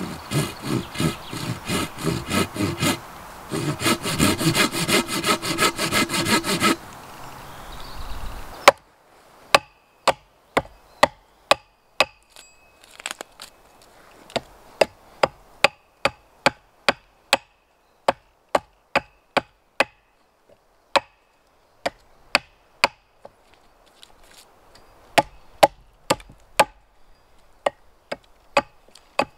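A Silky Bigboy 2000 folding pull saw cutting through a green pole in quick, even strokes, in two runs with a short pause. Then, after a few seconds, an axe chopping a notch into a pole with sharp, separate blows, about one to two a second.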